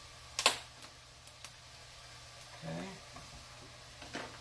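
Kitchen handling noise while burgers are assembled: one sharp clatter about half a second in, a few lighter clicks after it and another near the end, over a faint steady low hum. A brief low vocal sound comes near the middle.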